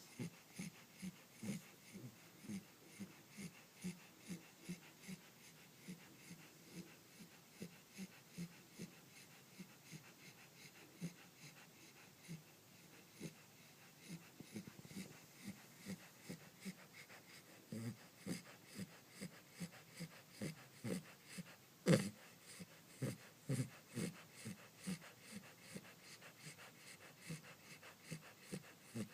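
Corgi puppy snoring softly in its sleep: short, rhythmic snuffling snores, about two a second. One louder, sharper sound comes about three-quarters of the way through.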